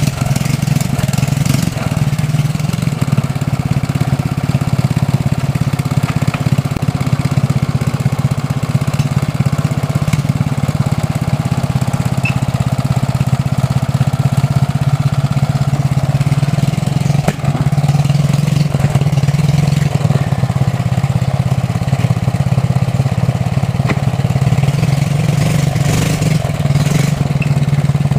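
Homebuilt tractor's engine running steadily while the tractor is driven slowly: a loud, constant low drone that briefly dips a little past halfway.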